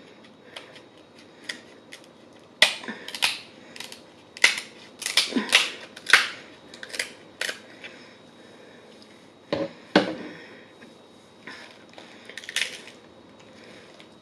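Kitchen shears snipping through the hard, spiny shell of a king crab leg: a quick run of sharp cracks and crunches. Near the end the cut shell cracks again as it is pried apart by hand.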